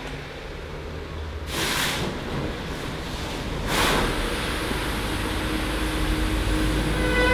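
Steady low rumble of a vehicle on the move, with two short rushing whooshes, one about two seconds in and one about four seconds in.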